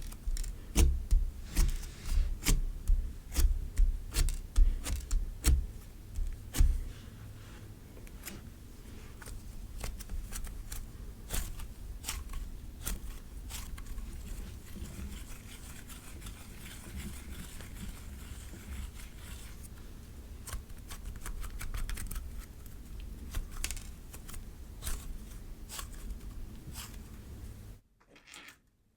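Cloud slime being stretched and pulled apart by hand, tearing with a fine crackle. For the first seven seconds or so it is pressed and squished in heavy repeated thumps, then the crackling goes on more softly. It cuts to silence for about a second near the end.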